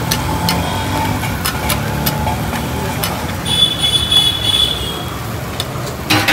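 Metal spatula scraping and tapping on a flat griddle as uttapams are turned and flipped, over a steady rumble of street traffic. A high-pitched tone sounds for about a second and a half around the middle.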